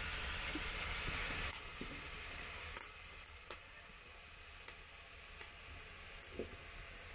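Chopped sukuma wiki (collard greens) sizzling as they fry in a pot over a wood fire, fading after about a second and a half. Then sharp pops and snaps from the burning firewood, about six of them, spaced out irregularly.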